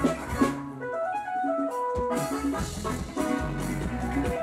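Live band music with drum kit and bass: about half a second in the bass and drums drop out, leaving a few held melody notes, and the full band comes back in about two seconds in.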